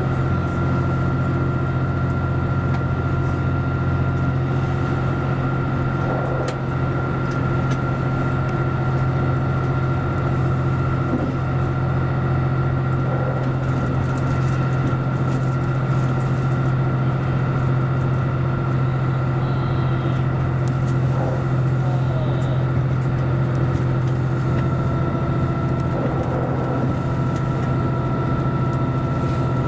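JR Central Series 85 diesel multiple unit running at speed, heard from inside the lead car: the steady drone of its diesel engines with a steady high whine above it, over the noise of the wheels on the rails.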